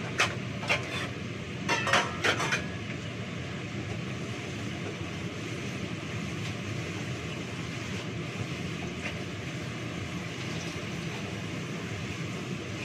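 Stainless steel plates clinking and clattering against each other as they are stacked at a sink: a quick run of sharp clinks in the first couple of seconds, then only a steady hiss.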